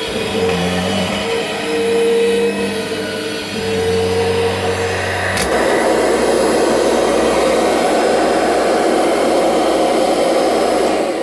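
Kirby Generation 5 upright vacuum cleaner running with a steady motor whine. About halfway through there is a sharp click, and the sound turns into a louder rushing noise. The machine is running fairly well after a long time unused.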